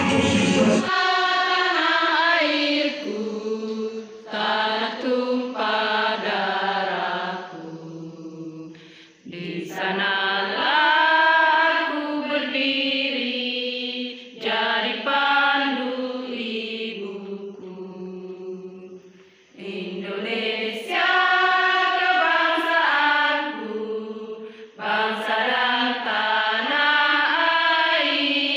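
A group of women singing together unaccompanied, in unison, in phrases of about five seconds separated by short breaths. In the first second, accompanied music with a bass line cuts off abruptly.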